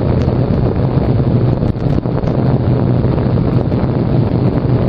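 Motorcycle engine with a baffle-less Yoshimura exhaust, running at a steady cruise with an even low drone, mixed with heavy wind noise on the helmet-cam microphone.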